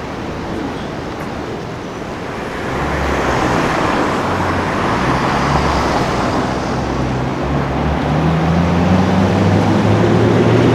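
Street traffic noise, then a car engine coming in about a third of the way through, growing louder, its note climbing near the end as it revs up.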